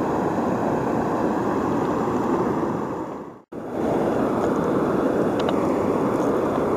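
Steady rush of fast river current and rapids, cut off for an instant a little past halfway before returning unchanged.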